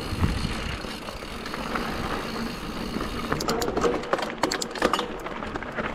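Mountain bike riding down a rough enduro trail: a steady rushing of tyres over dirt and wind. From about halfway through, a quick run of sharp clattering knocks comes from the bike as it rattles over bumps and rocks.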